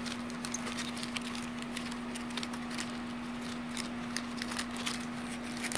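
Baseball trading cards being handled and leafed through: soft rustling with many small, irregular clicks, over a steady low hum.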